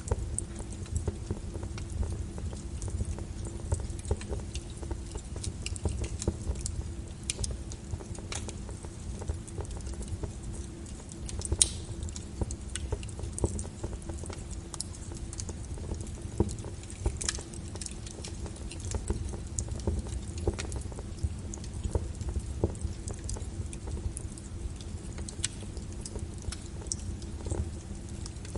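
Burning wood crackling in a fireplace: irregular snaps and pops over a low steady rumble, with two sharper pops about twelve and seventeen seconds in.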